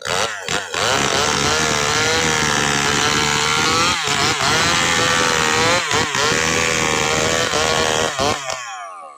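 Two-stroke chainsaw running at full throttle, cutting gmelina (white teak) wood. Its engine pitch dips briefly twice under load and falls away shortly before the end.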